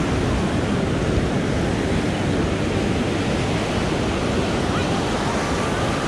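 Ocean surf breaking on a sandy beach in a steady wash of noise, with wind rumbling on the microphone.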